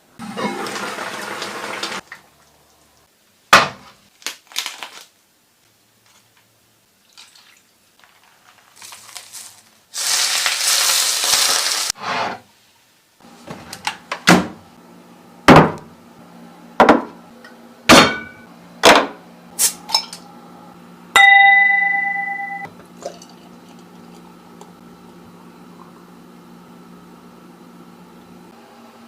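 Kitchen work sounds: two stretches of rustling or hissing noise, then a run of sharp knocks and clinks of utensils. A steady appliance hum sets in around the middle, and a single electronic beep lasting over a second sounds near two-thirds of the way through.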